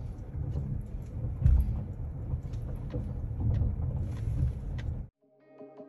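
Low rumble of a car crawling over a rough, rocky gravel trail, heard inside the cabin, with scattered clicks of stones and a hard jolt about a second and a half in. About five seconds in it cuts off and quiet background music takes over.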